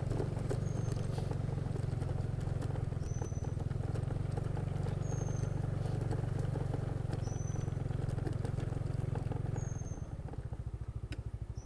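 A motor vehicle engine running steadily, settling to a slower, evenly pulsing beat about ten seconds in, as when it drops to idle. Short high chirps repeat every second or two over it.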